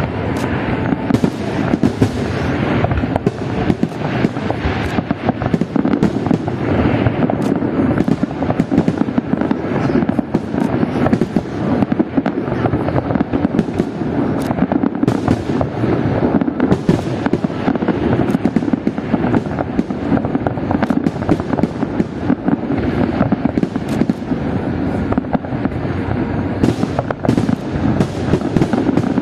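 Fireworks display: a dense, continuous barrage of bangs and crackling shell bursts, many per second.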